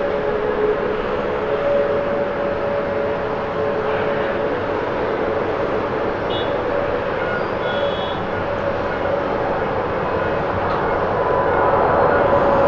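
Boeing 777-200ER's twin Pratt & Whitney PW4000 turbofans at takeoff thrust during the takeoff roll: a steady jet rumble and hiss with a droning whine, growing louder near the end as the airliner comes closer.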